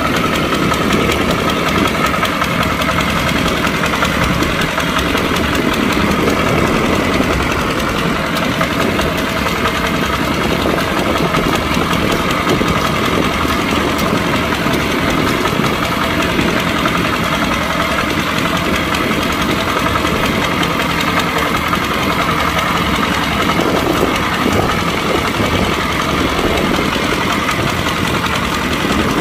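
Kubota tractor's diesel engine running steadily as it pulls a plow.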